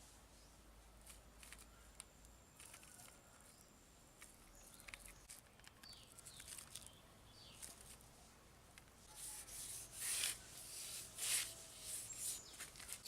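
Faint scattered clicks and short rustling, scraping noises, becoming louder and denser about nine seconds in.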